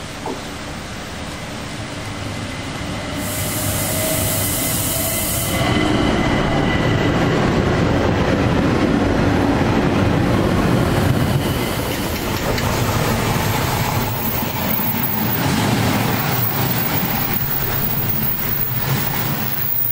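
Trains passing close on electrified main line: an electric multiple-unit passenger train runs by with a faint whine and a brief high hiss early on, then a heavy rumble of wheels on rails. After a cut, a freight train of wagons carrying lorries rolls past with a steady rumble.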